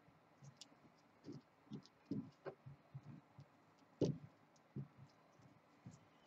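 Faint, irregular soft taps and rubs as fingers handle beaded-wire flower stems and wind floss around them, with one sharper click about four seconds in.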